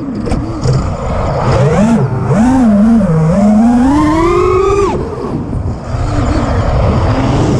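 The T-Motor F60 Pro II brushless motors and propellers of a Supafly Flipmode FPV quadcopter whining, the pitch swooping up and down with rapid throttle changes. About five seconds in the pitch drops sharply as the throttle is cut, then runs lower and quieter for a moment before climbing again.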